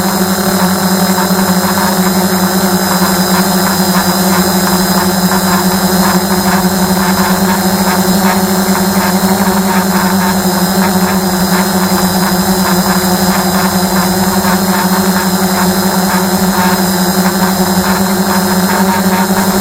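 Quadcopter drone's electric motors and propellers running steadily in flight, picked up by its own camera microphone: a constant hum with a strong low tone and faint high whines above it.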